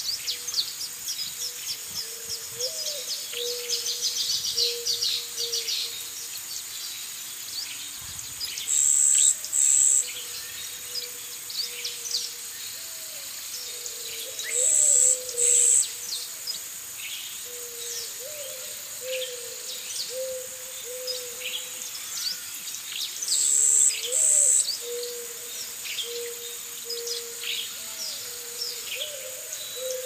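Birds chirping: many quick high chirps, with a louder pair of short, shrill high notes that comes three times, several seconds apart. A faint wavering lower tone runs underneath.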